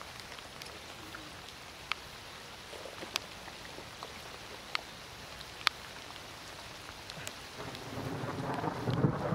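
Light rain: a steady hiss with sharp, irregular ticks of single drops striking the camera close to the microphone. Near the end, wind begins buffeting the microphone in a low rumble.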